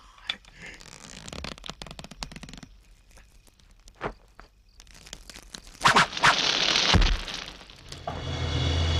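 Film sound effects of fire: scattered crackling and snapping, then about six seconds in a loud hissing rush of flames flaring up. Music starts near the end.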